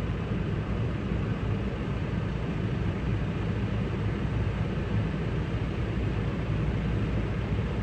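Tractor engine running steadily with an even, low rumble.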